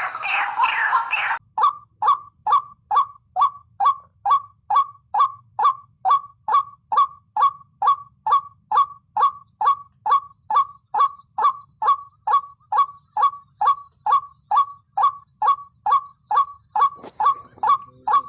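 White-breasted waterhen calling: a loud, harsh burst of calls for about the first second and a half, then a long, even series of short descending 'kwak' notes, about two and a half a second.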